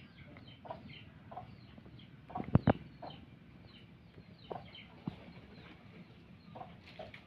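Birds calling in the background, with many short falling chirps and lower clucking calls now and then. Two quick sharp knocks land close together about two and a half seconds in.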